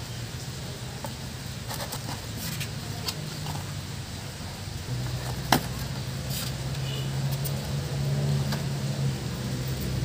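Scattered small metal clicks and taps as engine valves are handled and pushed into a cardboard holder, one sharp click a little past the middle. Under them runs a low steady motor hum that grows louder about halfway through.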